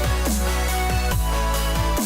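Electronic background music with a heavy bass and a steady beat of drum hits that fall in pitch.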